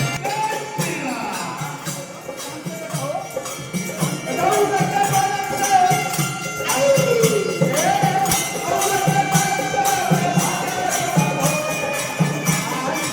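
Devotional folk-style music: jingling percussion like a tambourine keeps a steady beat under a melody that holds notes and slides between them.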